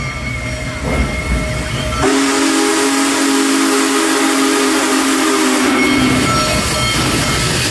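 Union Pacific 4014 Big Boy steam locomotive's chime whistle sounding one long blast of several notes together, starting about two seconds in and lasting about four seconds, over the rumble and hiss of the train.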